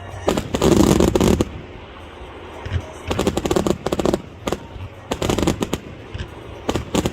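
Fireworks shells bursting in rapid clusters of crackling bangs, coming in four bouts with short lulls between them.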